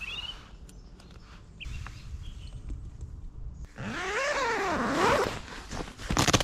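Nylon tent door zipper being pulled open: a rasping zip of about a second and a half that rises and falls in pitch, then a short, louder zip just before the end.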